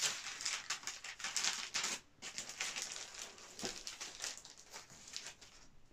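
Large paper screen prints and their thin translucent cover sheets rustling and crinkling as they are handled and lifted off a stack, in a run of short crackly paper noises that fade in the last couple of seconds.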